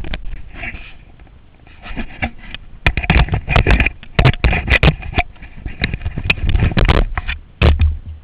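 Irregular rumble and buffeting on a body-worn action camera's microphone, with many sharp knocks and scrapes from the camera and its mount being moved and jostled. The sound is loudest in choppy spells from about three seconds in.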